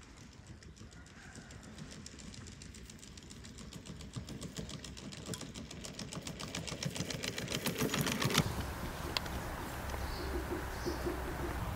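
A quadruped robot dog walking over grass and pine litter: rapid, closely spaced clicking and rustling footfalls that grow louder as it comes closer. After about eight seconds they stop, leaving a low steady hum and a few faint high chirps.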